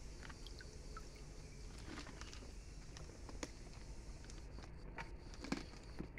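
A hand swishing through shallow water in a tarpaulin-lined tank, with small splashes and drips. One louder splash comes about five and a half seconds in.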